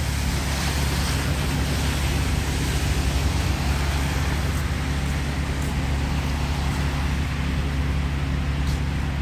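2011 Orion VII 3G diesel transit bus idling at a stop, a steady low engine drone.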